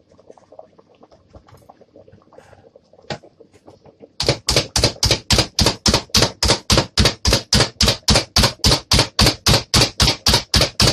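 Hand-held plunger food chopper pumped repeatedly onto diced vegetables on a cutting board: a rapid, even clacking of about five strokes a second that starts about four seconds in, after a few faint clicks.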